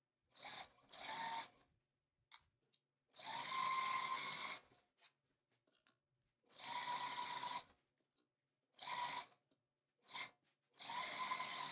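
Juki sewing machine stitching through a quilt in short runs: about seven bursts of steady motor-and-needle running, each up to a second and a half long, with a steady hum in each, stopping and starting with silent pauses between.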